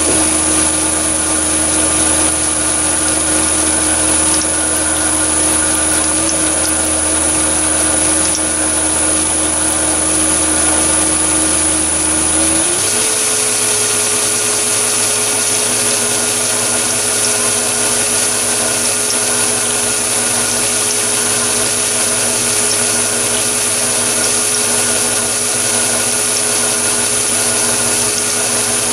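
Metal lathe running steadily while a drill bit in the tailstock bores the core hole for a 6 mm thread into a workpiece spinning in a four-jaw chuck. About 13 seconds in, the lathe's whine steps up in pitch as the spindle speed is raised.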